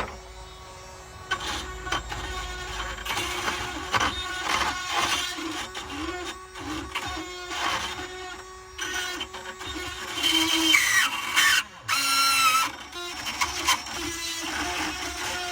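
Power drill running a burr bit into a UAP lock cylinder, its motor whining steadily as the bit grinds the metal, with a sharp high squeal about ten to twelve seconds in.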